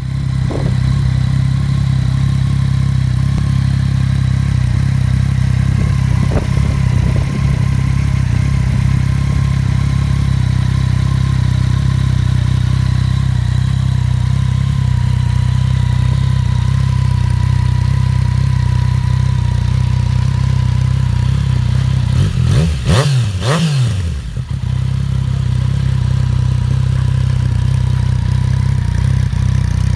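Yamaha MT-09 Tracer's three-cylinder engine idling steadily through a Scorpion aftermarket exhaust. Near the end it gives one quick throttle blip, the pitch rising and falling back to idle.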